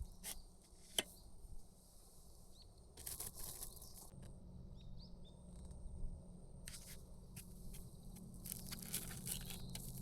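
Crinkling and rustling handling noises in several short spells, with a single sharp click about a second in, over a low steady hum.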